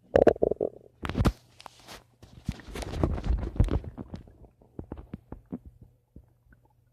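Stomach gurgling: a loud gurgle at the start, a sharp pop about a second in, then a longer crackling, bubbling stretch through the middle that trails off into scattered small pops.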